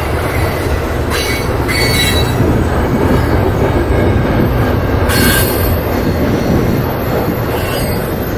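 Freight train rolling past close by: a steady rumble of steel wheels on rail, with short wheel squeals about a second in, around two seconds, and again about five seconds in.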